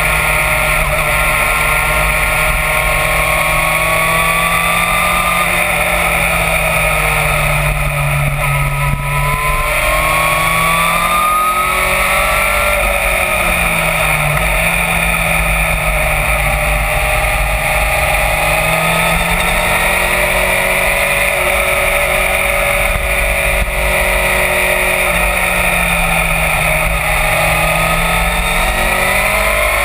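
Yamaha FZ1's inline-four engine running at road speed, its pitch rising and falling with the throttle, over a steady rush of wind noise.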